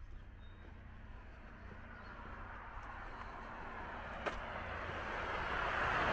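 A car driving up the road toward the listener, its road noise growing steadily louder until it is close near the end. A single sharp click about four seconds in.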